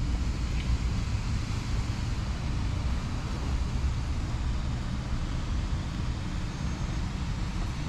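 Steady low rumble and hiss of wind buffeting the microphone, mixed with street traffic noise.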